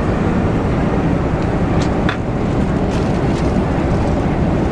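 Steady roar of cabin noise inside a Boeing 747-400 in flight, from the airflow and engines. A few faint clicks come about two and three seconds in.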